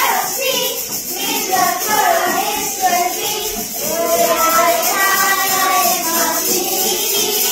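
A group of children singing a song together in unison, with longer held notes in the second half.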